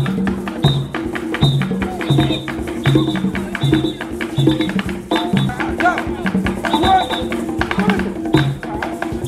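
Hand-drum ensemble playing a steady, driving rhythm: deep pitched drum strokes a little more than once a second, with quick sharp strokes filling in between.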